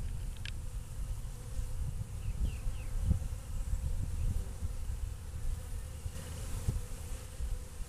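Honey bees buzzing in flight around the hive entrance, a colony active again after winter, with a steady faint hum over a low rumble.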